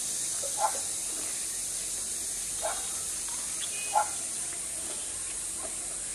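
A person eating from a bowl: four short eating sounds, the loudest about four seconds in, over a steady high hiss.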